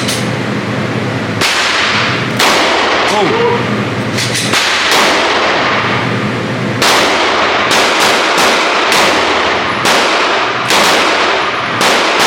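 Gunshots at a shooting range, about ten at uneven intervals, each sharp crack followed by a ringing tail.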